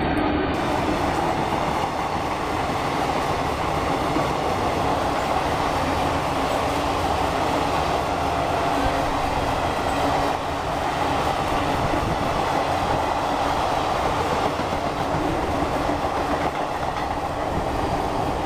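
Jan Shatabdi Express passenger train running through a station at speed: its coaches pass on the track with a loud, steady rolling noise that does not let up.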